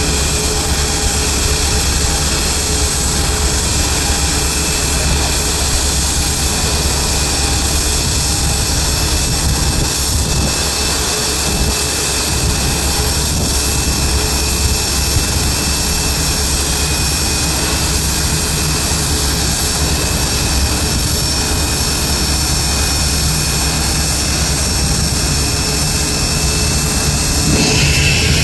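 Jet aircraft engines at an airport running steadily: a whine and rumble with several held tones. Near the end a higher whine comes in and the sound grows slightly louder.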